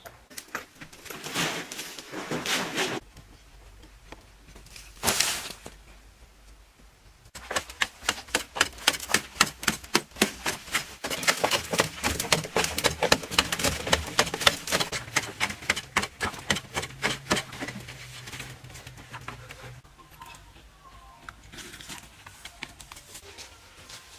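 Close-up crunching of food being chewed: a long run of rapid crisp crunches from about a third of the way in, thinning out near the end, after a few short noisy bursts.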